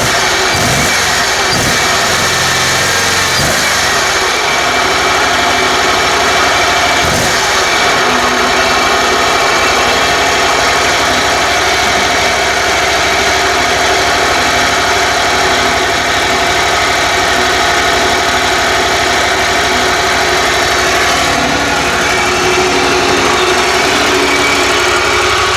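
A riding mower's 27 hp Kohler V-twin engine running steadily through a car muffler. It is firing again now that the rusted ignition coils and flywheel magnet have been sanded clean, curing the no-spark fault.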